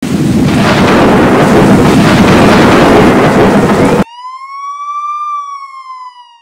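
Thunder sound effect: a loud, sustained crash and rumble lasting about four seconds that cuts off suddenly. It is followed by one long high wail that rises slightly, then slides down.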